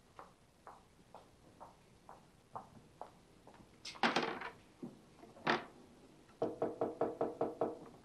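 Hammer tapping on a wooden canvas stretcher frame. Light taps come about two a second, then two louder knocks, and near the end a fast run of about ten sharp taps.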